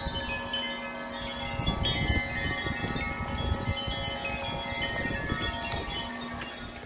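Wind chimes blown by strong gusts, many tubes ringing at once in overlapping steady tones, thinning out near the end. A low rumble of wind in the microphone comes and goes beneath them.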